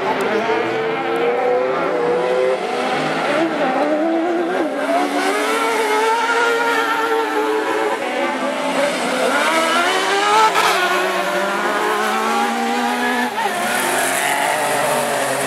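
Several superbuggies racing together on a dirt autocross track, their engines revving up and down through the gears as the pack goes past.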